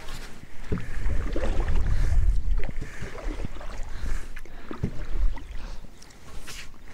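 Small wooden boat being paddled with a single paddle: splashes of the paddle in the water and a few short knocks of wood on wood. A loud low rumble of wind on the microphone comes from about one to three seconds in.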